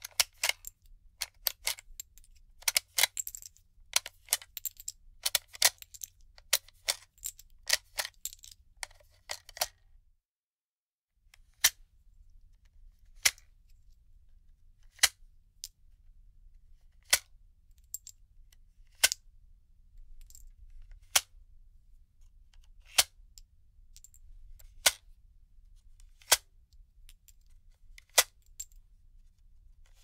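Gun reloading and magazine unloading sound effects: metallic clicks and clacks. A quick, dense run of clicks fills the first ten seconds, then after a second of silence single sharp clicks come about every two seconds, with fainter ticks between.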